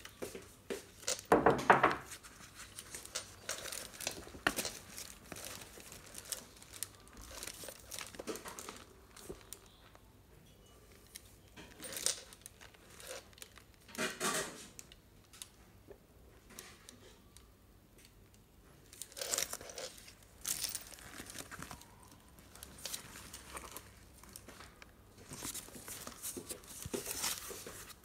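Crinkling and rustling of plastic and thin foam-and-tissue wrapping as a quilted leather handbag is handled and unwrapped, coming and going with quiet pauses, with a few sharper clicks of its metal turn-lock clasp.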